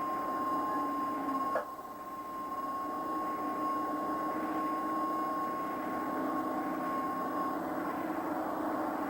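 Steady machine noise with a constant high whine, broken by a sharp click about a second and a half in, after which it drops briefly and builds back.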